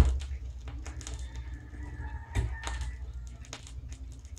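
Garrard 6-300 idler-drive record changer going through its change cycle: a loud thud as the next record drops onto the platter, then mechanical clicks and stylus crackle, with another thump about two and a half seconds in.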